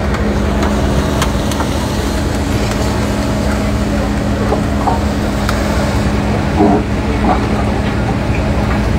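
Diesel engines of compact excavators running steadily: a constant low rumble with a steady hum.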